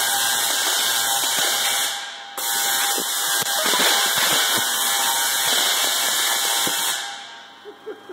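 Large Tesla coil firing, its long arcs making a loud, steady discharge noise. It cuts out for a moment about two seconds in, starts again, and stops about seven seconds in.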